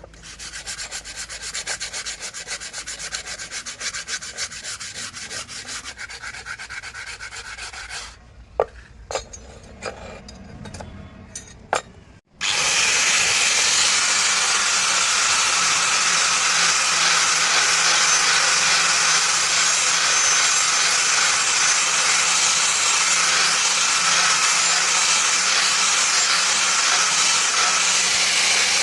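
Fast, even scraping strokes of hand-sanding or rasping wood for about eight seconds, then a few sharp clicks. About twelve seconds in the sound cuts abruptly to a loud, steady abrasive hiss that lasts to the end.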